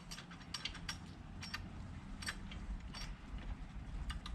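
Faint, scattered light metallic clicks and taps of small hardware (bolt, washers, nylock nut) being handled and fitted loosely to a motorcycle rear-set footpeg bracket, over a low steady hum.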